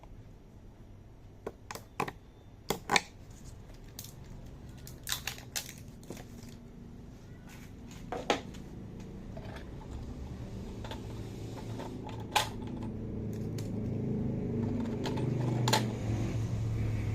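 Scattered sharp clicks and knocks of small plastic toy pieces being handled, with a low hum growing louder over the last several seconds.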